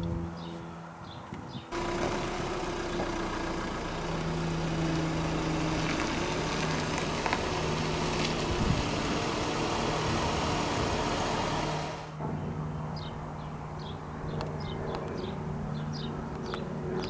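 Motor vehicle engine idling with a steady low hum. A loud rushing noise comes in over it about two seconds in and cuts off abruptly near the three-quarter mark, after which birds chirp.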